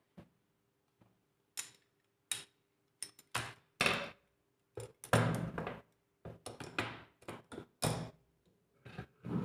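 Irregular clicks and knocks of laptop parts being handled and set in place, about fifteen sharp taps at uneven spacing, some heavier than others, over a faint steady hum.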